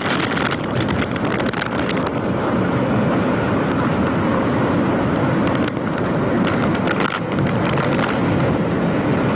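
Strong cyclone wind blowing over the microphone: a steady rushing noise, with harder buffeting near the start and again about two-thirds of the way through.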